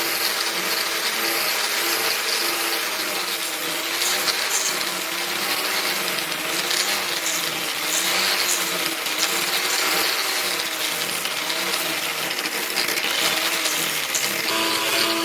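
Power tool running with a steady metallic hiss, its pitch dipping and rising about once a second.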